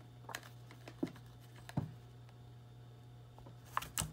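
About five scattered light clicks and taps as a hole punch and punched paper and card are handled.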